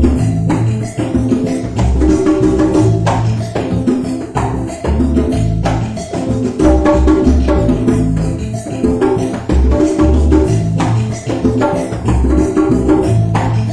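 Background music with a steady percussive beat and a bass line. A high sweeping whoosh repeats about every four seconds.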